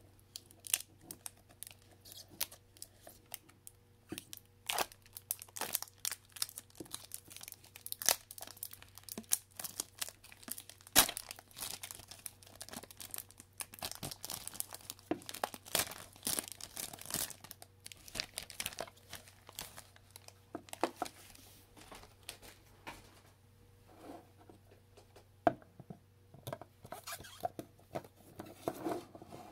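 A Pokémon card booster pack's wrapper being torn open and crinkled by hand: a dense run of sharp crackles and rips that thins out over the last several seconds.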